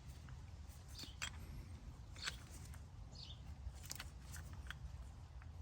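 Faint, irregular clicks and ticks of a brake caliper compression tool being turned by hand, metal parts knocking as it screws the rear caliper piston back in.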